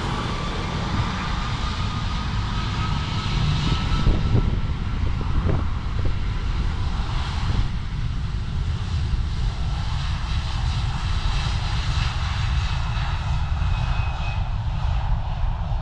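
Jet engines of an Airbus A330-200, Rolls-Royce Trent 700s, at takeoff power during the takeoff roll. There is a steady low rumble, with a whine that slowly rises in pitch.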